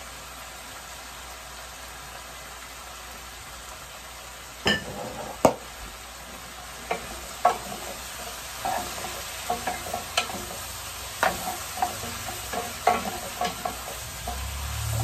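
Stir-fry vegetables sizzling in a pan with a steady hiss. From about five seconds in, spoons knock and scrape against the pan again and again as the vegetables are tossed.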